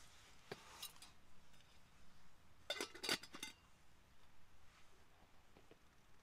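Faint light metal clinks of a backpacking cook pot and its lid being handled and set down on a small camp table. A few clicks come about half a second in, and the sharpest cluster of clinks comes about three seconds in.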